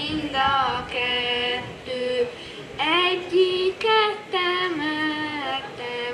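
Children singing a slow Hungarian folk song, each note held long.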